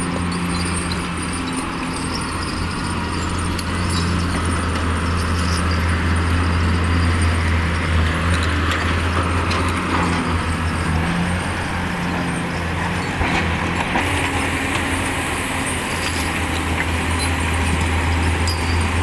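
Diesel engine of heavy earthmoving machinery running steadily, its note shifting a little, with a few light metallic clinks. The sound changes abruptly about two-thirds of the way in.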